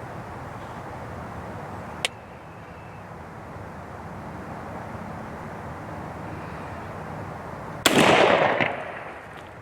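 A single shotgun shot with birdshot about eight seconds in, the loudest sound, its report dying away over about a second. A sharp click comes about two seconds in, over a steady outdoor hiss.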